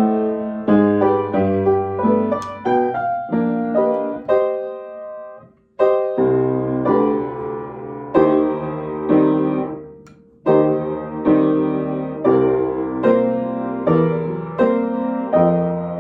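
Piano being sight-read, a chord or note struck every half second or so, each one ringing and fading. The playing breaks off twice, about six and ten seconds in, then carries on.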